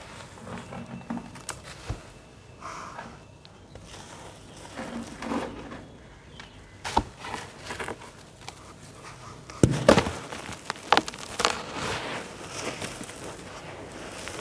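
Hands crushing and crumbling balls of damp sand and cement over a tub of wet slurry: gritty crunching and crackling with scattered sharp cracks. The cracks bunch together in the second half, the loudest about ten seconds in.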